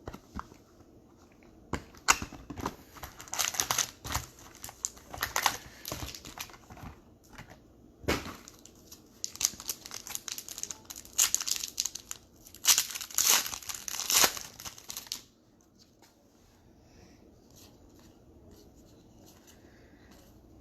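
Trading-card pack wrappers being torn open and crinkled by hand, in repeated bursts of crackling and tearing that stop about three-quarters of the way through.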